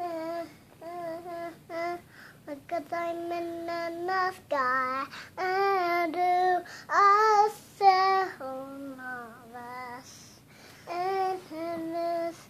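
A toddler girl singing in a high voice without clear words, holding long notes, loudest with rising notes about six to eight seconds in and lower notes just after.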